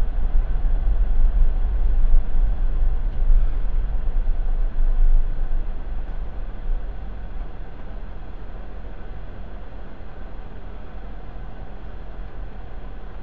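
Car road and engine noise heard from inside the cabin, a steady low rumble. It is louder at first and drops to a quieter, steadier hum about halfway through as the car slows to a stop.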